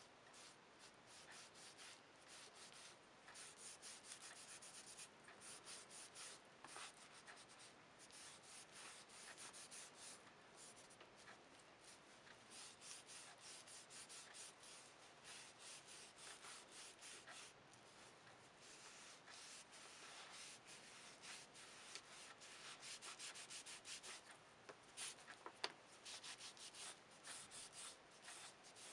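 A cloth rubbed quickly back and forth over a strip of dyed leather, a faint scratchy scrubbing in rapid strokes that comes in runs of a few seconds with short pauses. There is a single sharp click near the end.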